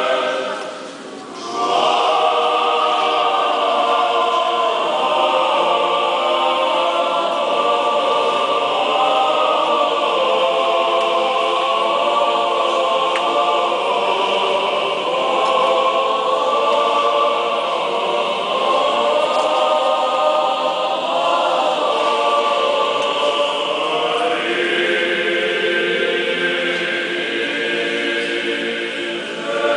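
Church choir singing an unaccompanied Orthodox liturgical chant in sustained, many-voiced phrases, with a short break about a second in before the next phrase begins.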